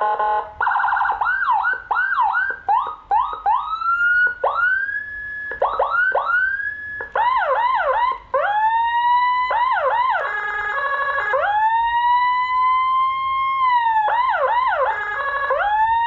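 A Whelen HHS-type 200-watt electronic siren, played through its chrome siren speaker and switched through several tones. It starts with a rapid stepping two-tone, then fast yelps, slower rising-and-falling wails, and a quick warble about ten seconds in, before a long held wail and more yelps near the end.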